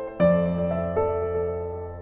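Soft background piano music: slow chords struck every half second or so, each ringing and fading.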